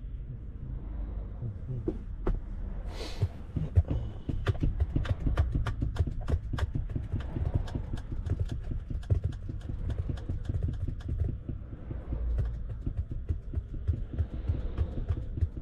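Inside the cab of a moving Scania P410 truck: steady low engine and road rumble, with a run of sharp clicks and rattles, several a second, from about two seconds in until about twelve seconds in. A brief hiss sounds about three seconds in.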